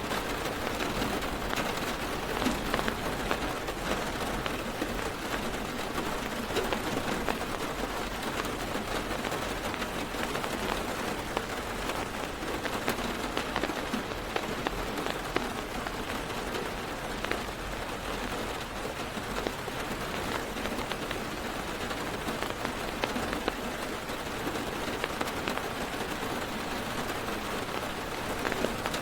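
Heavy rain drumming on a car's roof and windows, heard from inside the car: a steady hiss with many individual drops pattering.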